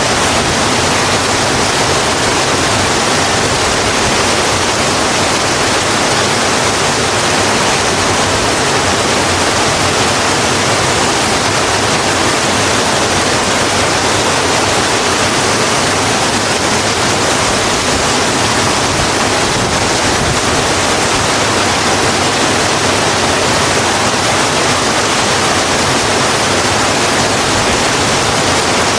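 Steady heavy rain: an even, unbroken hiss of rainfall.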